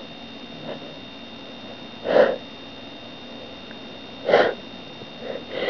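A person's short, sharp sneezes and sniffs: a faint one just under a second in, two loud ones about two and four and a half seconds in, and smaller quick ones near the end.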